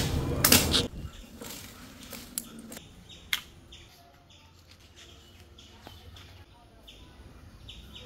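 Small birds chirping faintly and repeatedly. A louder rush of noise cuts off about a second in, and two sharp clicks come a few seconds in.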